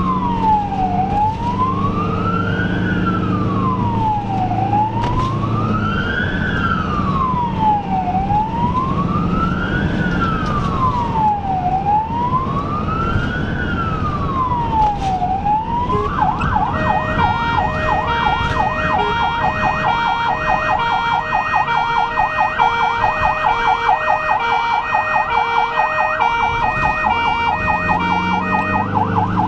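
Ambulance siren on an emergency run, heard from inside the cab. It sounds a slow wail rising and falling about every two seconds, then about halfway through switches to a fast yelp. Engine and road noise run underneath.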